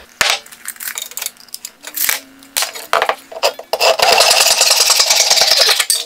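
A few knocks and clicks of wooden boards being handled and set on a workbench, then about four seconds in a hand saw starts cutting through a wooden board with quick, even rasping strokes.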